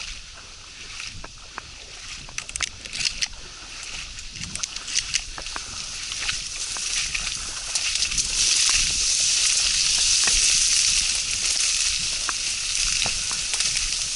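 Sloshing, rustling water noise with many small clicks and ticks, as from a small boat moving on the water; it swells louder about halfway through.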